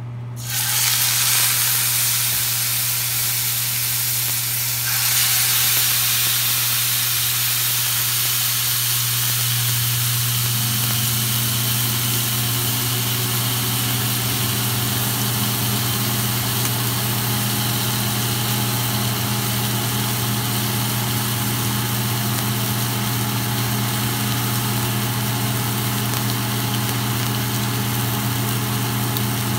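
Two marinated filet mignon steaks searing in hot grapeseed oil in a nonstick frying pan: a steady loud sizzle that starts suddenly about half a second in and grows louder about five seconds in. A steady low hum runs underneath.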